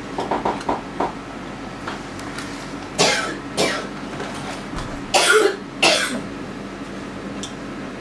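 A person coughing: two double coughs, the first about three seconds in and the second about two seconds later.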